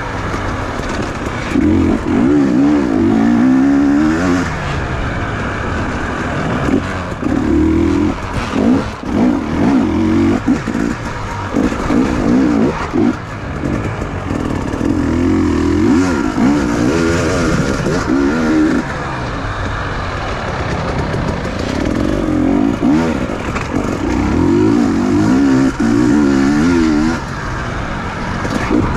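Dirt bike engine heard from on board, revving up hard and dropping back again and again, its pitch climbing with each burst of throttle and falling as it backs off.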